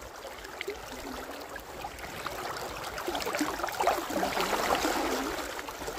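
River water flowing, its rushing noise swelling about halfway through, with scattered small clicks.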